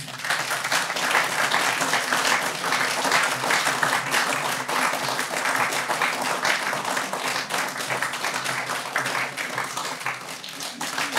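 Audience applauding: many hands clapping in a dense, steady patter that starts all at once.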